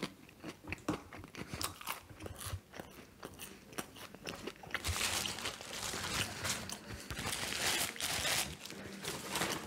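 A person chewing and biting McDonald's food close to the microphone: many small wet clicks and crunches, turning denser and louder about halfway through.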